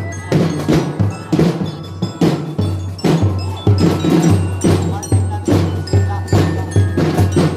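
Loud, percussion-driven street-dance music: a steady beat of about two hits a second over deep bass pulses, with bell-like chiming on top.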